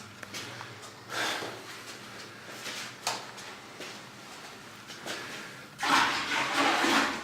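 Toilet flushing: water rushing loudly for about a second near the end, after a few faint brief knocks and rustles.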